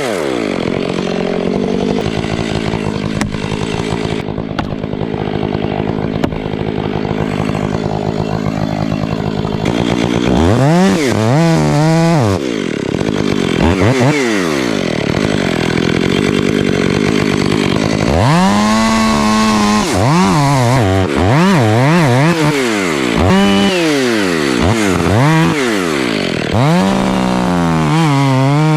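Chainsaw cutting through a thick black oak stem. The engine runs steadily for about ten seconds, then its pitch drops and climbs again many times as the saw bogs down in the cut and recovers, a tough cut.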